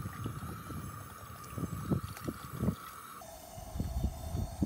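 Wind buffeting the microphone in irregular low gusts, over a steady thin tone that drops to a lower pitch a little past three seconds in.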